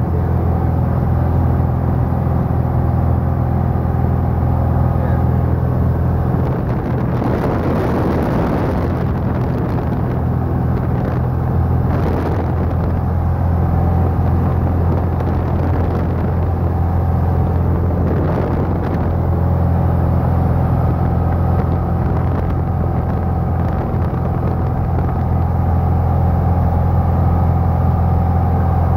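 Light single-engine airplane's piston engine and propeller droning steadily in cruise flight, heard from inside the cockpit along with airflow noise. There is a brief swell of rushing air about a quarter of the way in.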